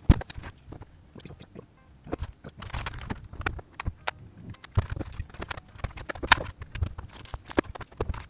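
Irregular clicks, knocks and clatter of battery chargers and their cables being picked up, moved and set down while they are sorted by hand.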